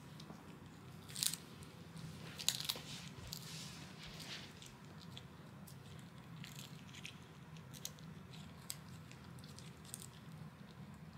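A Chihuahua gnawing and crunching a dried chew treat: irregular crackling bites, the loudest a little over a second in and again about two and a half seconds in, then lighter, sparser crunches.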